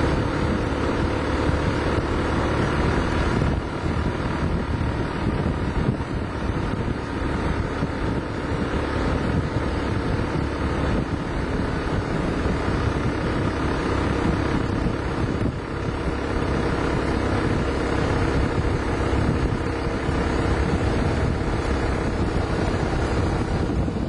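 A vehicle engine drones steadily while moving, mixed with wind buffeting the microphone.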